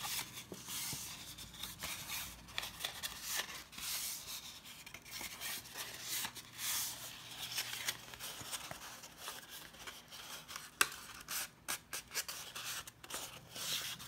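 Card stock being folded by hand along its score lines: paper rubbing and crinkling, with scattered sharp crackles and a louder snap late on.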